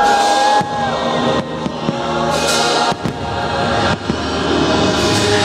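Choir singing over the fireworks show's music soundtrack, with several firework bangs breaking through.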